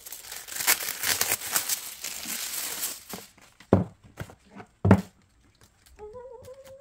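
Packaging crinkling and tearing as it is pulled open, then two dull thumps about a second apart; near the end a voice starts humming softly.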